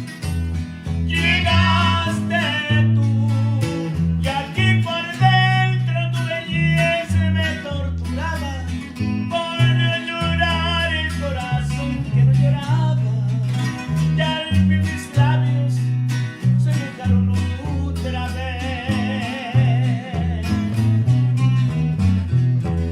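Live norteño music: singing over strummed guitar and a bass line that moves on the beat.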